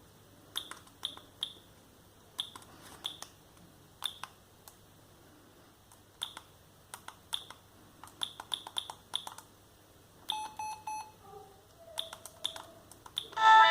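Siemens M55 mobile phone keypad: button clicks, each with a short high key beep, in quick groups of two to five presses, as if scrolling through the ringtone menu. About ten seconds in there is a brief run of four rapid lower pips.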